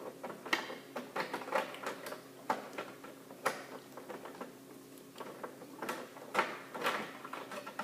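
A screw being worked out of a printer's plastic casing: irregular small clicks, taps and short scrapes of the tool in the screw and against the housing.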